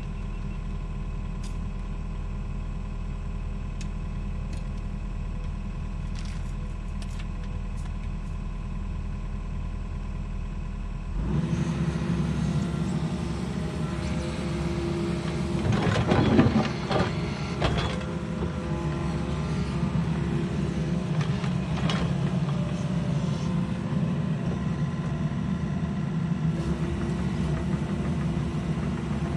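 Diesel engine of a piece of earthmoving equipment running steadily. About eleven seconds in the sound changes abruptly to a louder, rougher engine run, and a burst of knocks comes a few seconds later, the loudest moment.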